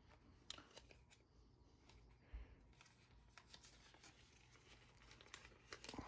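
Near silence with faint rustling of a plastic baggie and light clicks of small plastic diamond-painting tools being handled, with a soft bump about two seconds in.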